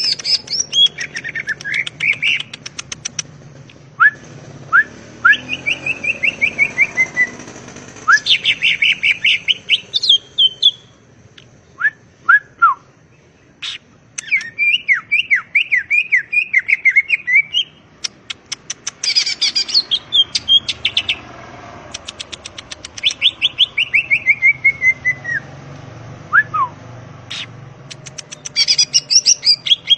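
Cucak ijo (green leafbird) singing a varied song. Runs of falling whistled notes alternate with sharp single chirps and fast buzzy clicking trills, in short phrases with brief pauses between them.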